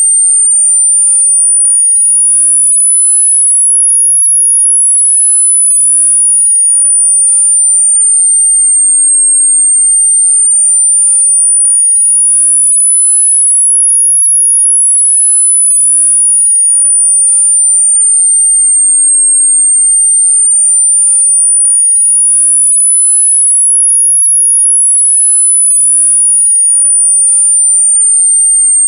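Synthesized pure sine tone, very high-pitched, gliding slowly up and down in a smooth repeating sweep, one full rise and fall about every ten seconds: a tinnitus masking sound.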